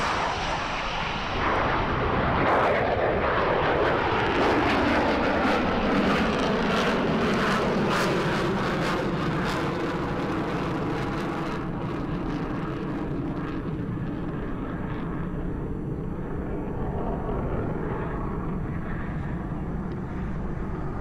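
Blue Angels F/A-18 Hornet's twin turbofan engines passing low overhead, with a loud jet noise whose pitch sweeps downward as it goes by. The engines crackle for several seconds as the jet climbs away, then fade gradually and grow duller.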